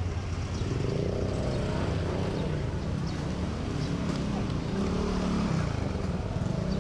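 Vehicle engines running steadily in street traffic, with faint voices of people in the background.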